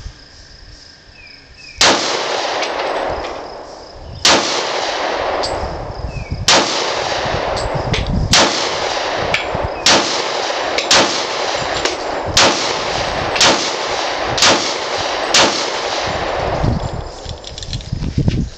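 Smith & Wesson SD40VE .40 S&W semi-automatic pistol fired about ten times. The first shots come about two seconds apart, then quicker, about one a second. Each shot echoes on for a second or more.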